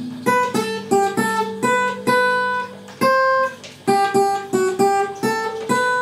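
Acoustic guitar playing an instrumental break of single picked notes, a melody of quick notes with a few held longer.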